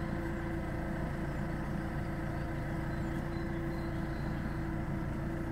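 Telehandler's diesel engine running steadily at idle, a constant drone with a steady hum.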